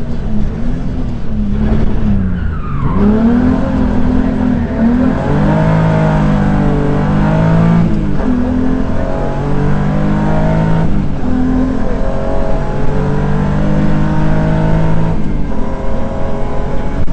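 BMW 325i rally car's straight-six engine heard from inside the cabin, driven hard on a stage. The revs dip about two seconds in, then climb and drop back at gear changes about eight, eleven and fifteen seconds in, over steady road noise.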